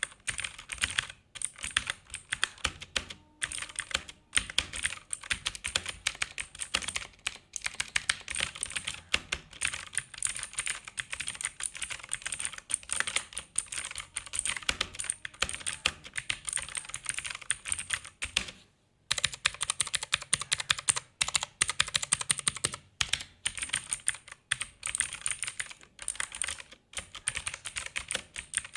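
Continuous fast typing on a Zebronics Zeb Max Pro V2 mechanical keyboard with blue switches, each keystroke a sharp click, with brief pauses now and then, the longest a little under a second near two-thirds of the way in.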